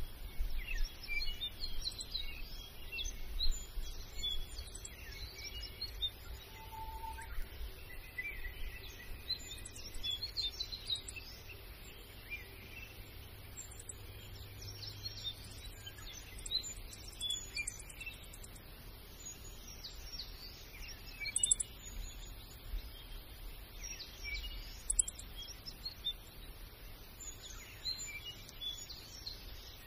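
Many small birds chirping and calling, short chirps and trills overlapping throughout, over a steady low background rumble.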